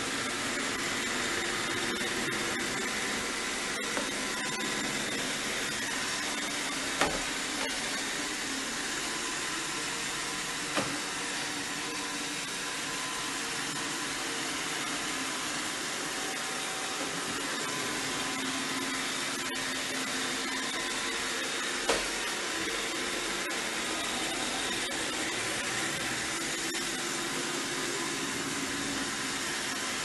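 iRobot Roomba 605 robot vacuum running on a hard wooden floor: the steady noise of its vacuum motor and spinning brushes, broken by a few short knocks.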